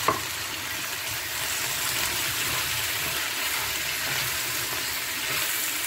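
Onions, peppers and tomatoes frying in a hot pan, a steady sizzle, with one short knock right at the start.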